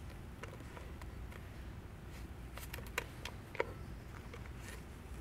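Blue tape being pressed and smoothed by hand onto the end of a stainless pipe coupon: faint scattered crackles and small clicks, with two sharper ticks about three seconds in, over a low steady room hum.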